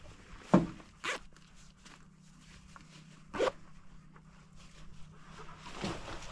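Hunting clothing and gear being handled: fabric rustling with a few short sharp zips and clicks, the loudest about a second in and about three and a half seconds in, over a faint steady low hum.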